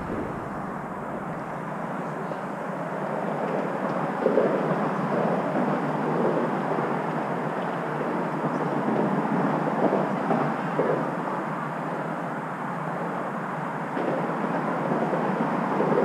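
Steady outdoor background din of distant traffic, swelling a little now and then.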